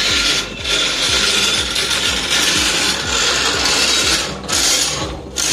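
Spray wand hissing in long bursts as it coats formwork panels, cutting out briefly about half a second in and again around four and a half seconds in.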